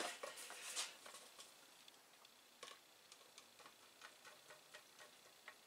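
Faint handling noise from the power supply's metal case and wire harness: a few sharper clicks in the first second, then scattered light ticks and taps as fingers work the wire bundle at its exit hole.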